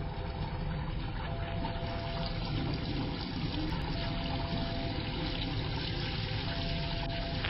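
Liquid running and trickling steadily, a sound effect for blood draining through a tube from the arm. A thin tone comes and goes over it.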